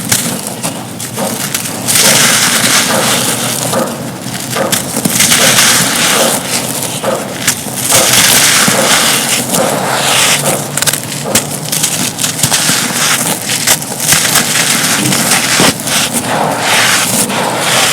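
Dry, dusty, gritty molded cups crumbled in both hands: a dense crunching crackle of breaking bits and grit, swelling into louder stretches several times.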